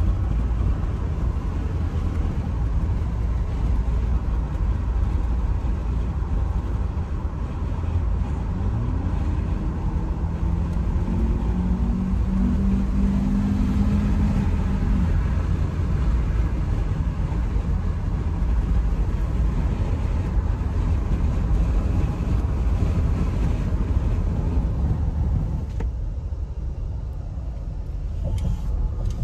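Steady low rumble of road and engine noise inside a moving car's cabin. A higher hum rises and holds for several seconds about a third of the way in, as of the engine pulling harder.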